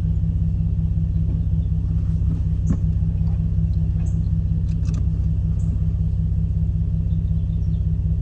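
Nissan 370Z's 3.7-litre VQ V6 idling steadily, an even low rumble with a few faint clicks over it.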